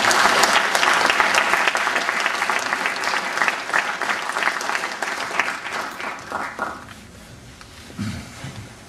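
Audience applauding, strongest at first, then thinning out and dying away about seven seconds in.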